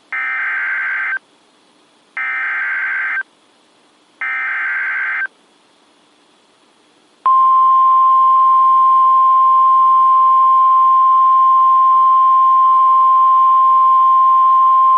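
Emergency Alert System header on NOAA Weather Radio: three one-second bursts of warbling digital data tones about a second apart, then a single loud steady alert tone starting about seven seconds in and still sounding at the end. Together they signal the start of a new warning, here a severe thunderstorm warning.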